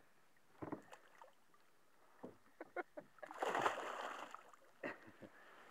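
A snagged stick being hauled up beside a fishing boat: scattered knocks and clicks, then a splash about three seconds in as it breaks the water's surface.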